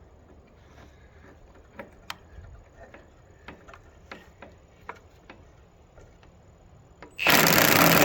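Scattered light clicks and taps of hardware being handled. About seven seconds in, a power tool starts up loud and runs for under two seconds, driving a bolt in until it will go no further.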